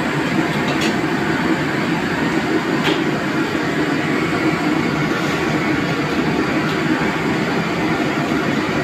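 Steady, loud roar of a commercial kitchen's gas wok range and exhaust hood, with a couple of faint clinks about one and three seconds in.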